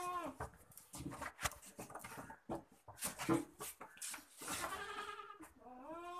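Goats bleating: one call ends just after the start, another long call comes around the middle to late part, and a third begins near the end, with scattered clicks and knocks between the calls.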